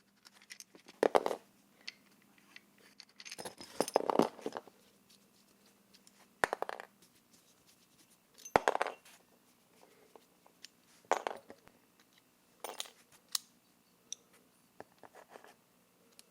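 Small metal parts clicking and clinking in separate knocks, about eight spread over the stretch with a short flurry near the middle, as the stock throttle housing with its built-in run/stop switch is taken apart.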